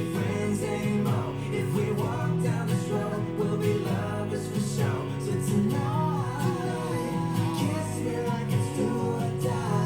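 Pop song with guitar and a melodic line, played through Hivi Swan D100 desktop nearfield speakers; the deep bass below about 100 Hz is largely missing.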